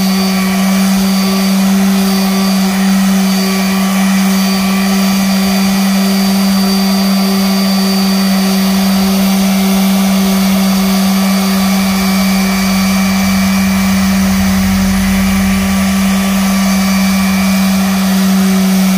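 Electric random orbital sander running steadily with its sanding pad on the face of a wooden chopping board, giving a constant even hum throughout.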